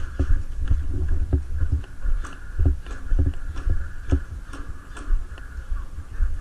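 Irregular low thumps and light clicks, a few a second, of a player moving about: footsteps and gear knocking against the microphone.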